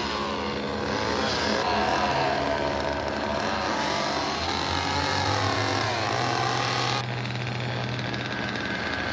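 Chainsaw engine running and revving, its pitch rising and falling. The sound changes abruptly about seven seconds in.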